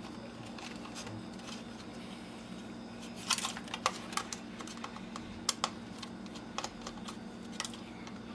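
Plastic clicks and taps of a camcorder's casing and internal parts being handled while it is taken apart, irregular and starting about three seconds in, over a steady low hum.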